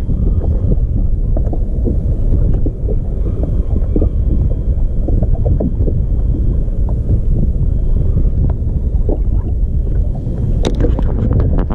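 Wind buffeting the microphone over water slapping against a fishing kayak's hull, a steady low rush, with a few sharp clicks near the end.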